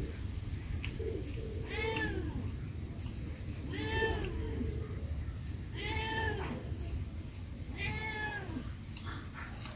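A cat meowing four times, about two seconds apart, each call rising and then falling in pitch.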